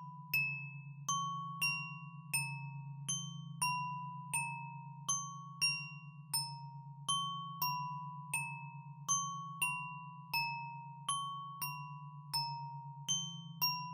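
Background music: a slow, repeating melody of chiming glockenspiel-like notes, each struck and left to ring, about three notes every two seconds, over a steady low drone.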